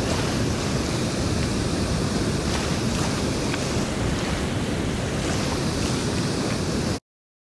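Wind buffeting the action camera's microphone, with a steady rumble, over river water washing against a rocky bank. It cuts off abruptly near the end.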